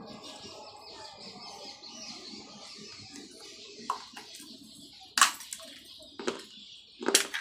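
Homemade sun-dried clay cup being bitten and crunched between the teeth: a few sharp cracks, the loudest about five seconds in, with a cluster of crunches near the end.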